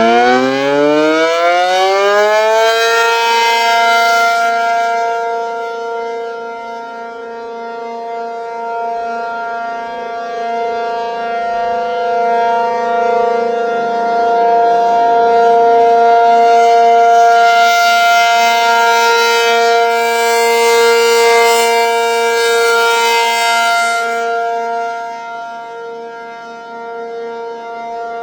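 ACA Penetrator-50 tornado siren with a 50 hp motor and an 8/12-port chopper, finishing its wind-up with a rising pitch over the first three seconds, then holding the steady alert tone. Its loudness swells and fades slowly as the rotating horn sweeps toward and away.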